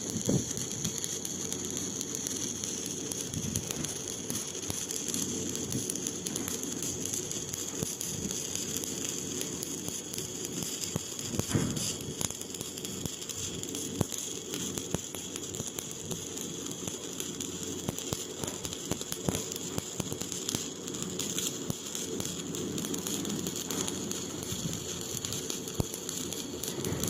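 Electric arc welding on steel pipe: the arc crackles and sizzles steadily, with scattered sharper pops.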